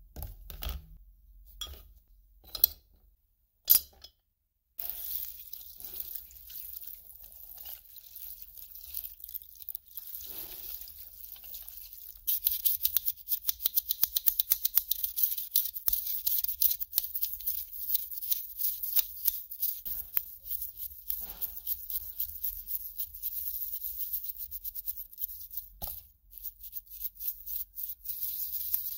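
Fishing reel parts being scrubbed clean in kerosene in a plastic tub. A few sharp knocks of parts against the tub in the first seconds, then a continuous scratchy scrubbing of rapid strokes that grows louder and denser about twelve seconds in.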